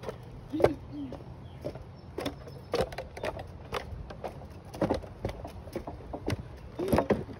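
Footsteps on a hiking trail: an uneven run of short steps about two a second, with a couple of brief squeaks.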